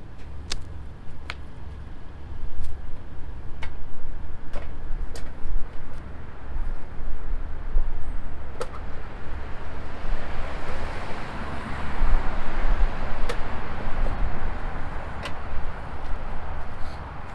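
Outdoor truck-lot background: a choppy low rumble from wind on the microphone and vehicles, with scattered light clicks. A broad hiss swells about ten seconds in, then eases.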